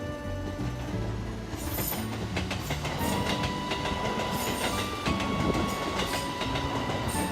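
Train passing on the line, its wheels clacking over the rail joints with a rushing rumble that builds about a second and a half in. A steady high tone joins from about three seconds in.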